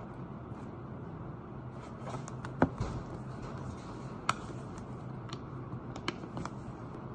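Leather handbag being handled and a wallet taken out onto a desk: soft rustling with a few sharp clicks and knocks, the loudest about two and a half seconds in, over a steady low hum.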